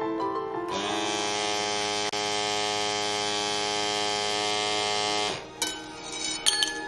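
A small electric motor running at a steady pitch for about four and a half seconds, then stopping, followed by a few light clicks and knocks. Piano music fades out just before the motor starts.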